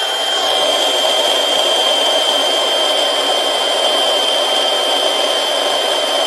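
DeWalt cordless blower running steadily, blowing air through a hose attached to its nozzle: a high, even whine over rushing air.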